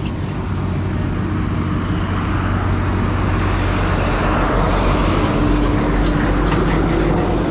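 Road traffic on a highway: motor vehicles running past with a steady engine drone that grows stronger about halfway through.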